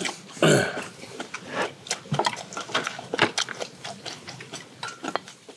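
Close-miked eating sounds: chewing and slurping of braised pork and kimchi stew, with irregular clicks of chopsticks against metal bowls and the pan. One louder burst comes about half a second in.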